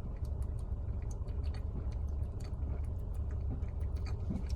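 Sprite being chugged, heard as a string of quick irregular clicks and crackles from gulping and fizz, over a steady low hum.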